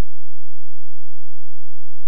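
Steady low electronic tone: a 'Rife' healing-frequency drone held at one unchanging pitch, played loud with no change.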